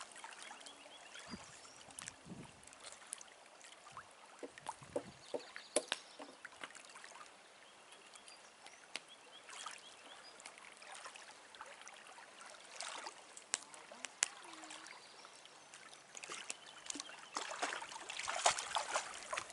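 Small waves lapping along a gravel lakeshore, with irregular light clicks and crunches and a busier stretch of splashing and crunching near the end.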